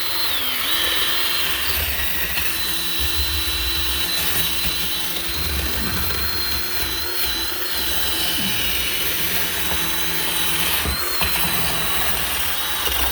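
Cordless power tool running steadily on wood, its motor whine dipping briefly a few times as it bites in, grinding away the blackened surface down to clean red wood.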